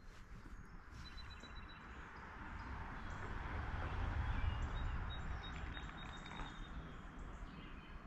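Outdoor riverbank ambience: a low wind rumble on the microphone that swells about halfway through and eases off, with a few faint bird chirps.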